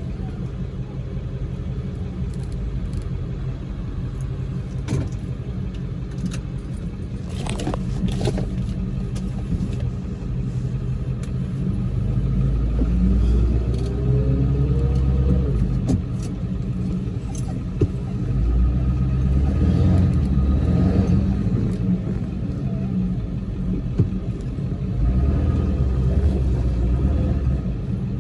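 A car under way: steady engine and road rumble, swelling in louder spells, with the engine note rising as it speeds up about halfway through, and a few small clicks and rattles.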